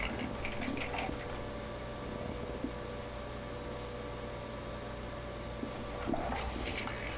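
Steady room hum, like a fan running, with a faint steady tone and a few faint brief sounds about a second in and again near the end.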